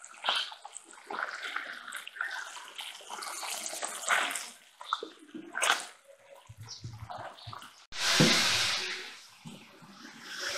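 Whole fish deep-frying in hot oil in a wok: a steady crackling sizzle, with scattered clicks and scrapes of a metal spoon against the pan. The sound breaks off abruptly about eight seconds in and comes back as a louder rush of noise.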